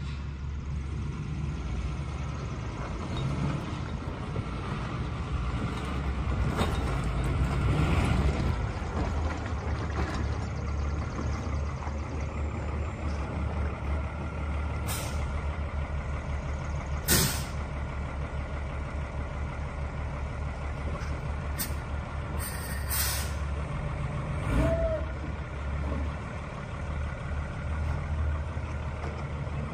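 2007 Hino box truck's diesel engine running steadily as the truck is driven slowly across gravel, with a few short sharp hisses or knocks, the loudest about halfway through.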